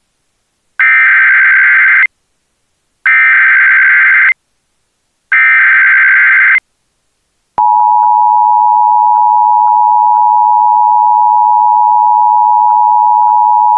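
Emergency Alert System header for a child abduction (AMBER) alert: three bursts of SAME digital data tones, each about a second long with about a second between them, then about a second later the steady two-tone EAS attention signal begins.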